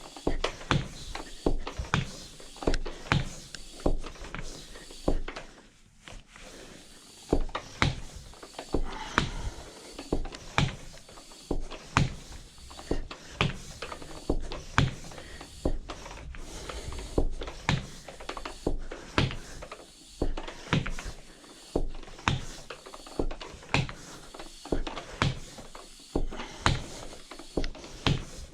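Hand-operated tire pump inflating a bicycle inner tube inside a new tire, stroke after stroke at an even pace of about one and a half strokes a second, with a short pause about five seconds in.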